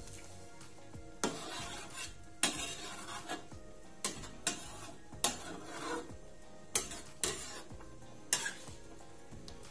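Metal ladle stirring a thick simmering chili sambal in a metal pan, knocking and scraping against the pan's sides and bottom about nine times at an uneven pace of roughly one a second.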